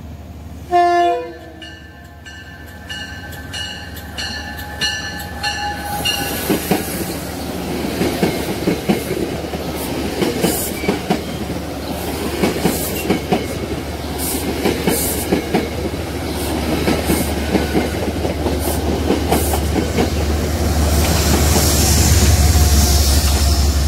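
A train rolling past, its wheels clacking over rail joints in a steady run of paired clicks with a low rumble that grows louder toward the end. Near the start a short loud tone sounds, followed by a few seconds of evenly repeating ringing tones.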